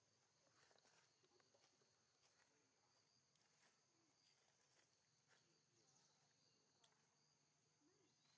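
Near silence: a faint steady high insect drone of the forest, with a few soft scattered clicks.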